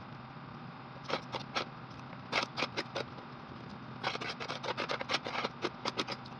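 Fork and spoon clicking and scraping against a plate while eating, a few sharp clicks at first, then a quick run of them from about four seconds in, over a steady low hum.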